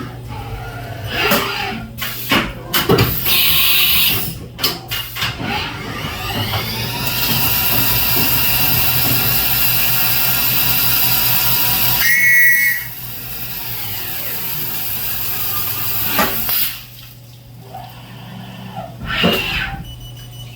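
CNC milling machine cutting billet aluminum on a 4th axis: the spindle's whine rises and falls in pitch, with sharp cutting knocks in the first few seconds and a steady hiss from about seven to twelve seconds, then quieter after about seventeen seconds.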